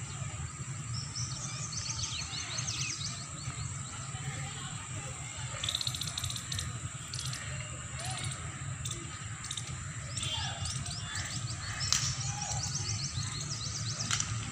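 Small birds chirping in quick runs of high, falling notes, with a few sharp clicks about halfway through and a steady low rumble underneath.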